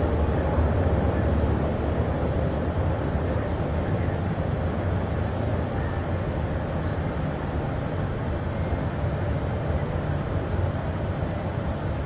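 Steady low rumbling background noise, with a few faint, short, high falling chirps scattered through it.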